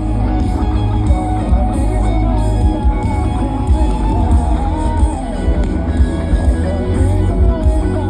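Live pop-rock band playing loud through a festival sound system, with heavy bass, drums and guitar carrying a melodic line, and no clear singing.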